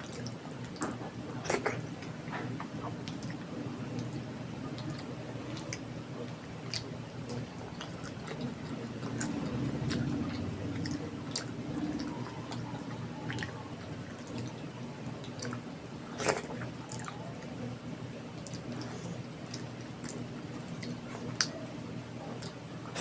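Close-miked eating sounds from a person eating spicy khichdi and egg curry: wet chewing and squishing, with frequent small mouth clicks. Sharper clicks come about a second and a half in and again about 16 seconds in, over a low steady hum.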